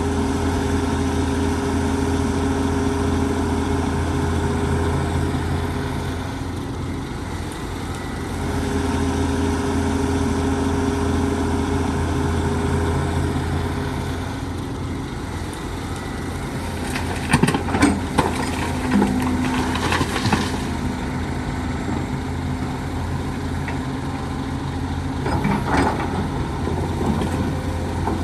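Heavy diesel engine of an excavator at work, running steadily with a low hum that eases off briefly twice. Sharp clanks and knocks come in a cluster in the middle and again near the end, as of the bucket and loaded soil striking metal.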